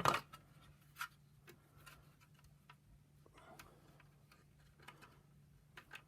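A few sharp plastic clicks and taps from the parts of a vacuum power nozzle being handled and pushed into place. The loudest click is right at the start and another comes about a second in, then faint scattered ticks over a low steady hum.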